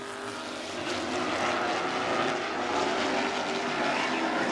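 A pack of Super Late Model stock cars racing around a short oval, their V8 engines droning together with pitches that waver as the cars run through the turns; the sound grows a little louder about a second in.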